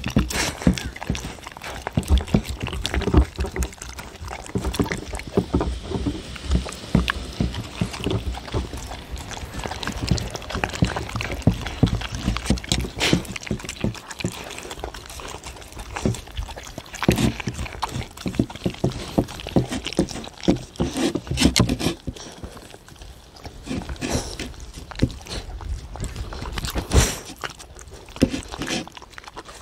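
Two dogs eating turkey from a wooden bowl: wet chewing, licking and smacking, with dense, irregular clicks and knocks throughout.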